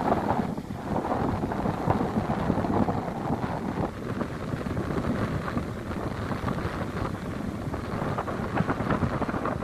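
Surf washing on a sandy beach, a steady, uneven rush of breaking waves, with wind buffeting the microphone.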